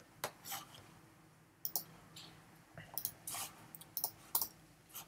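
Computer mouse clicking: a handful of short, sharp clicks at irregular intervals.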